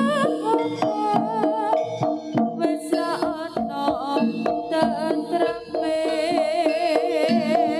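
Javanese jaranan ensemble music: hand-drum strokes at a quick, busy rhythm under sustained ringing pitched tones, with a wavering, bending melody line on top.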